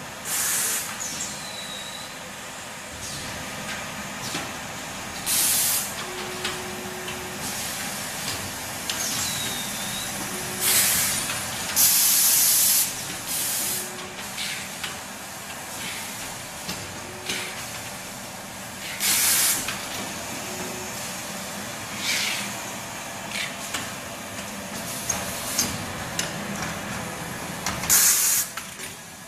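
Tissue paper converting machinery running steadily, broken about seven times by sharp hisses of released air, the longest lasting about a second. A short low tone repeats every three to four seconds with the machine's cycle.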